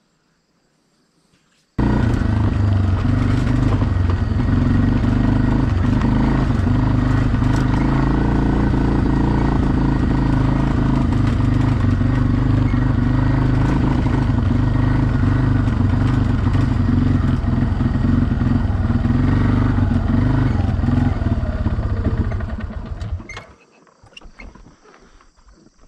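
ATV engine running steadily while riding, with wind and road noise. It starts abruptly about two seconds in and fades away near the end.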